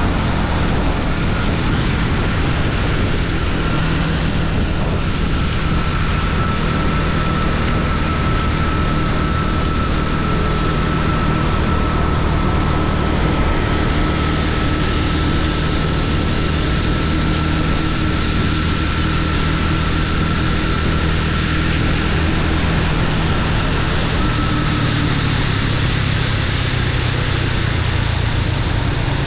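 Motorcycle engine running steadily while riding, under a steady rush of wind and road noise; the engine note shifts near the end. A thin, steady high whine sounds from about a second in until near the end.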